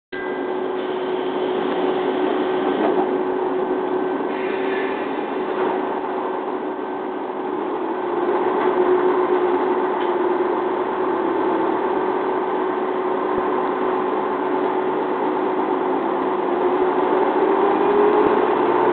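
MIKI 300 diesel railcar heard from inside the cabin while running: a steady engine drone with a held tone. The drone gets louder about eight seconds in, and near the end a tone starts to rise in pitch as the engine picks up.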